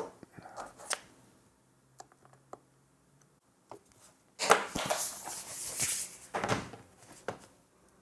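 Handling noise from an aluminium MacBook Air laptop on a desk. A few light clicks come first. About halfway through there are two seconds or so of loud rubbing and scraping as it is moved and opened, and a couple of knocks follow.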